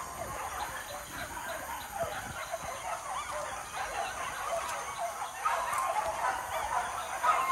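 A pack of hunting dogs in full cry on a wild boar: many overlapping high yelps and barks, unbroken, growing louder over the last couple of seconds.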